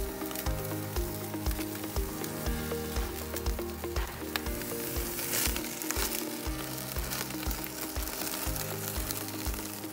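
Beef ribs sizzling on a hot grill as their fat drips into the fire and flares up, under background music with a steady beat.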